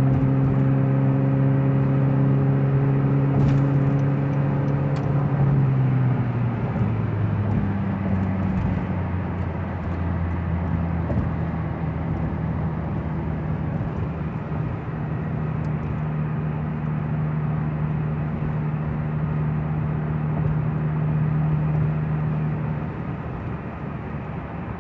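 Honda CR-Z's engine, fitted with an aftermarket exhaust tip and a K&N intake, heard from inside the cabin while cruising at highway speed over steady tyre and road noise. Its note steps down in pitch about six seconds in, then holds a steady drone.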